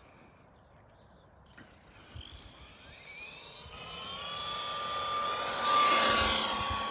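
A 6x6 RC truck's electric motor and gears whine at full throttle. The whine rises in pitch as the truck speeds up, then holds steady and grows louder as it approaches, loudest as it passes close near the end.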